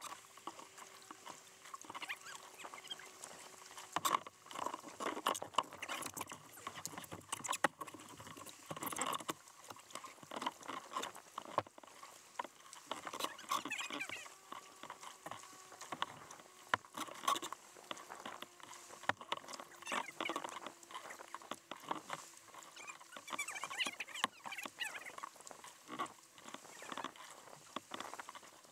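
Kayak paddling: water dripping and pattering off the paddle blades with small splashes, and a steady run of irregular clicks and light knocks.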